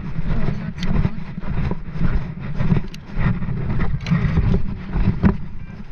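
Low, gusty rumble of wind buffeting the camera microphone, with a few sharp clicks scattered through it.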